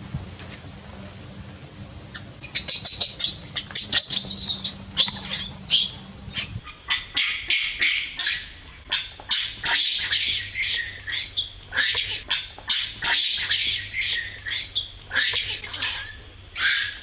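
Baby monkey crying in a long run of shrill, high-pitched screeches, each call rising and falling, starting a couple of seconds in and repeating over and over.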